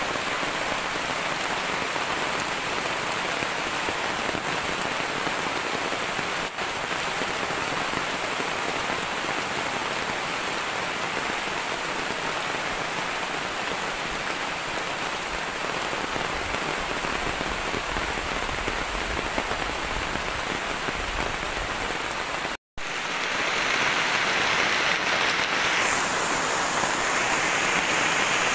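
Heavy tropical downpour falling on forest foliage and leaf litter, a steady dense hiss of rain. About 23 seconds in it breaks off for an instant, then resumes somewhat louder.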